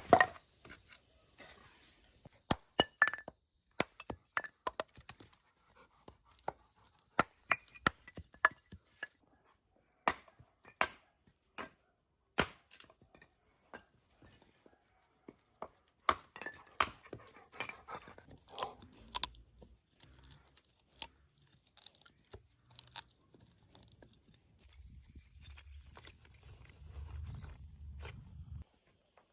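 A series of sharp knocks and clicks at irregular intervals, some a few seconds apart and some in quick clusters, with a faint low rumble near the end.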